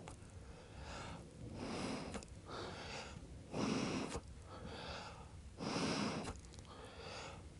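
A person giving rescue breaths into the nose of a dog CPR training manikin: a series of breathy swells, taking a breath in and then blowing out through the dummy's nose, again and again.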